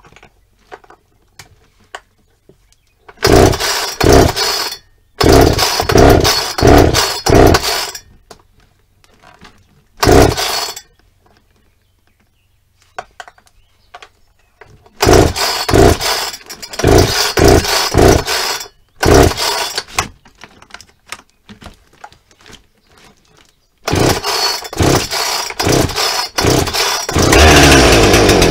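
Two-stroke Husqvarna chainsaw being pull-started: several loud bursts of cranking and sputtering that die away between pulls, then the engine catches about a second before the end and keeps running.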